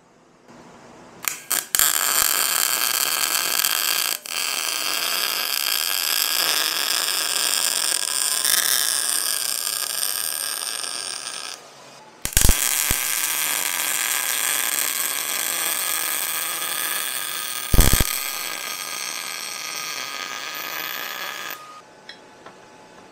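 MIG welder arc running on a steel valve seat in an aluminium cylinder head, in two steady runs of about ten seconds each with a short break between them and a few sharp pops. The weld's heat is meant to loosen the seat so it pops out of the head.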